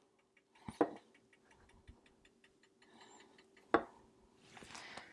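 Two light knocks as kitchen containers are picked up and handled on the countertop, over faint rapid ticking and a faint steady hum.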